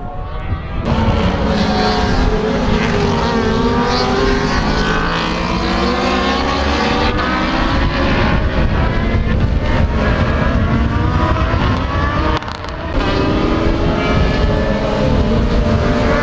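Several racing sidecar outfits' engines revving hard as a pack goes round the circuit, with many overlapping engine notes rising and falling as the machines change gear and pass. The sound dips briefly about twelve seconds in, then the engines return.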